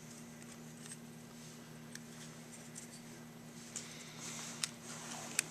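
Faint handling of a paper carburetor gasket being worked over the venturi: light rustling and small clicks, with a couple of sharper clicks near the end. A steady low hum runs underneath.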